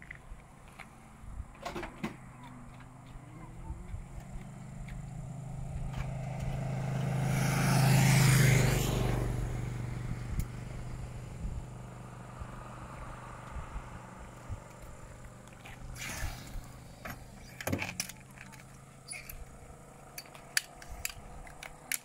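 A car passing on the road, building over several seconds to its loudest about eight seconds in and then fading away. A few sharp knocks follow later, from work on the rally car.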